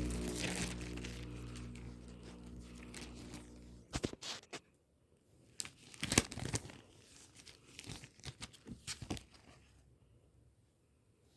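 A low steady drone fades out over the first four seconds, then plastic packaging crinkles and crackles in short irregular bursts as it is handled and torn open.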